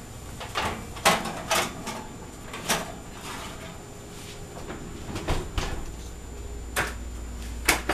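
Irregular knocks and clacks of kitchen things being handled, about seven sharp ones spread over several seconds, the loudest about a second in.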